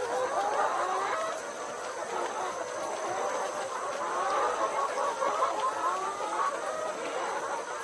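Flock of domestic chickens clucking, many short overlapping calls without a break.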